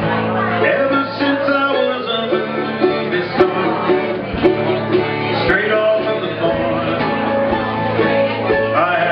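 Live acoustic country-style music: an acoustic guitar strumming under a plucked mandolin, with a few light drum hits.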